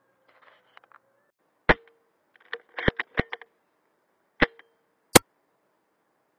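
A series of sharp mechanical clicks and snaps from a Tokyo Marui VSR-10 spring-powered bolt-action airsoft sniper rifle as it is worked and fired. The loudest and sharpest snap comes about five seconds in.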